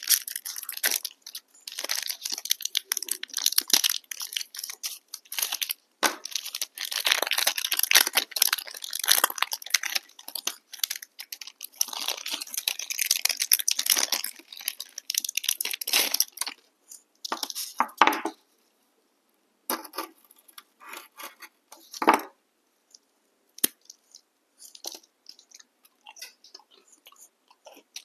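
Close-up crunching and chewing of crunchy chocolate-and-biscuit snacks: dense crackling bites and chews for about the first sixteen seconds, then sparser, quieter clicks and smacks with short silences.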